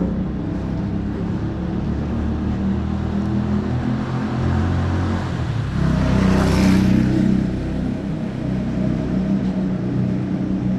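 Motor vehicle engine running steadily, with a vehicle passing close about six seconds in, loudest around the seventh second.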